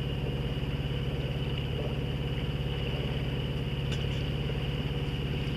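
A sailboat's engine running steadily while the boat motors along: a constant low drone with a fine, rapid pulse.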